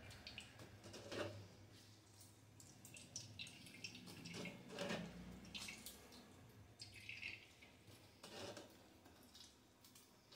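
Faint, irregular squelches and drips of water as boiled soya chunks are squeezed by hand in a steel mesh strainer, pressing the cooking water out.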